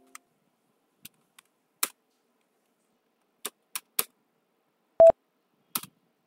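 Computer keyboard keystrokes, about nine separate key clicks at irregular intervals while the accounting software is driven from the keyboard, with one short, loud beep about five seconds in.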